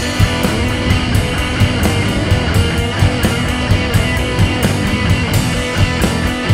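Live blues-rock band playing an instrumental passage with no vocals: electric guitars over a drum kit keeping a steady beat.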